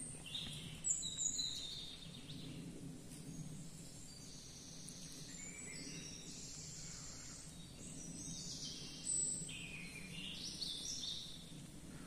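Faint birdsong in woodland: high calls coming and going, over a low steady background hush. A couple of short clicks stand out, about a second in and again near nine seconds.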